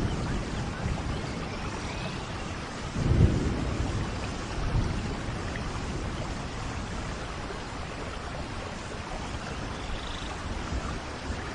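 Steady tropical rain falling, with a low roll of thunder about three seconds in and a few faint bird calls.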